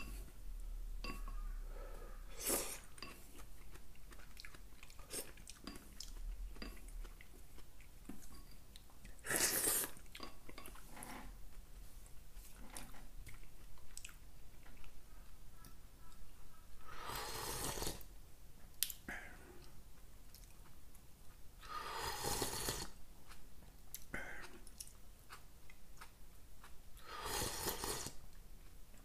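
A person eating from a bowl of soup with chopsticks: soft chewing and small mouth clicks, broken by several short, loud slurps spread through.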